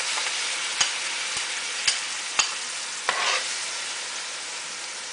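Masala curry paste sizzling steadily as it fries in hot oil in a large metal pot. A spoon and bowl clink sharply against it four times in the first couple of seconds, then the spoon scrapes briefly as the last of the paste is pushed in.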